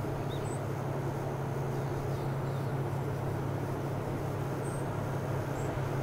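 Diesel train engine running steadily as the train approaches in the distance: a low, even drone over a rumbling hum.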